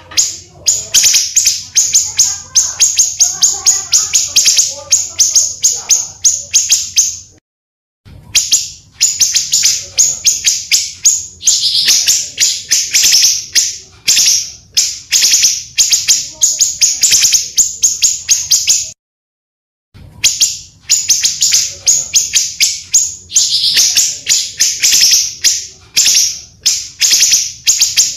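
Pancawarna bird singing a fast, continuous run of high chirps, a recorded song played as a lure and as song-tutoring material. It comes in long bouts that break off abruptly twice for about a second.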